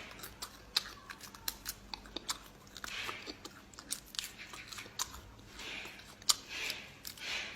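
A person biting and chewing centipedes, with many sharp, irregular crunches.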